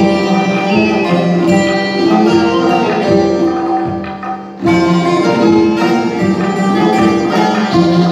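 Live traditional Persian ensemble music: plucked lutes (oud and tars) and a trapezoidal zither, with an end-blown flute and a hand drum. About four seconds in, the music thins and quietens for half a second, then the full ensemble comes back in.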